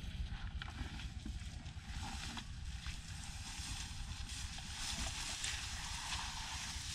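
Wind rumbling on the microphone, with tall grass rustling and swishing as someone walks through it; the rustling grows louder near the end.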